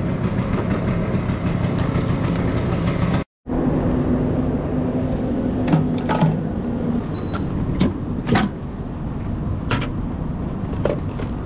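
A scooter engine running steadily at low speed, cut off abruptly about three seconds in. After that, a low steady hum and a scattering of separate sharp clicks and clunks, about six of them, as the scooter's side cowl and the tool box behind it are handled.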